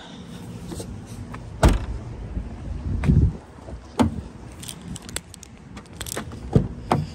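Liftgate of a Volkswagen Taos SUV shut with one sharp bang about one and a half seconds in, followed by a few dull thumps and then quick clicks and knocks at the car's side door near the end.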